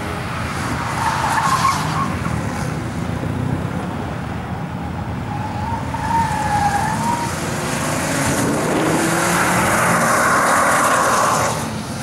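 An Audi 90 quattro B2's five-cylinder engine running hard as the car slides sideways through a corner, its tyres squealing and scrubbing on the tarmac. The squeal wavers in pitch at first and is loudest near the end, as the car pulls away.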